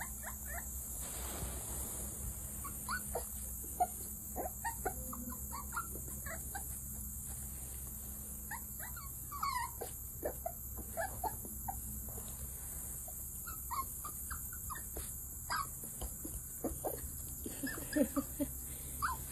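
Seven-week-old Coton de Tulear puppies whimpering and yipping: short, high squeaks that slide in pitch, scattered throughout and more frequent near the end, over a steady high hiss.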